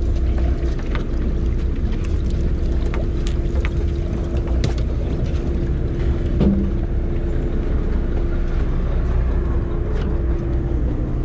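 Sportfishing charter boat's engine running steadily: a low rumble with a steady hum over it. Scattered light clicks, and a single louder knock about six seconds in.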